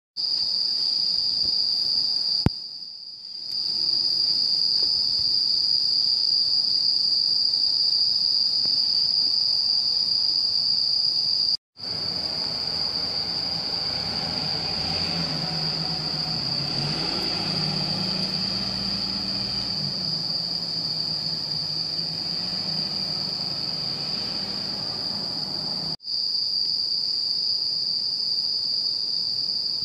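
A steady, high chirring chorus of crickets in the night, unbroken across the cuts. Through the middle stretch a van's engine hums low underneath as the Nissan Caravan community minibus pulls in.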